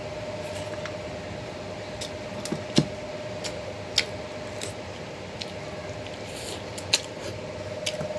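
Eating sounds of a rice-and-curry meal taken by hand from a steel plate: chewing with a few sharp clicks and smacks scattered through, over a steady low hum.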